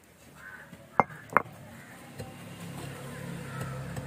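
Stone roller knocking twice, sharply, on the flat stone grinding slab about a second in, half a second apart, while the garlic paste is gathered up. Crows caw in the background, and a low steady engine hum sets in about two seconds in.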